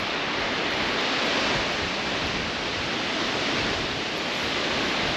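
Falling water of a tall waterfall close to its base: a steady, even rushing noise.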